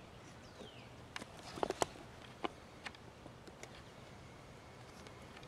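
A short falling bird whistle, then a cluster of sharp clicks and snaps over about a second and a half, with a few fainter ticks after.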